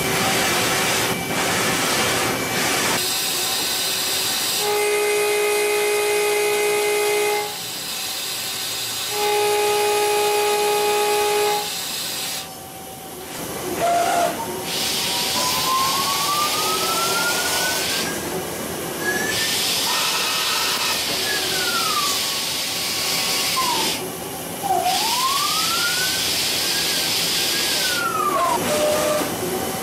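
Mazak Integrex i-100 Bartac-S CNC turning centre cutting a metal part, coolant spray hissing throughout. Over the hiss the spindle whine holds a steady pitch twice in the first half, then rises and falls in long glides in the second half as the spindle speeds up and slows down.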